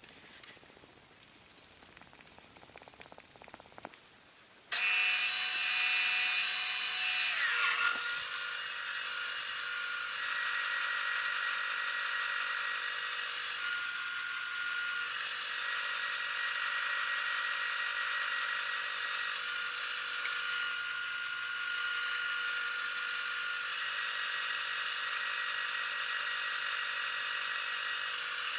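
Wood lathe motor switching on suddenly about five seconds in, its whine dropping in pitch a couple of seconds later, then running steadily.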